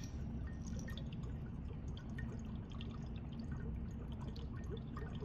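A piece of dry ice bubbling in water in a glass graduated cylinder: a dense, irregular run of small bubbling pops as the solid CO2 sublimes into gas, over a steady low room hum.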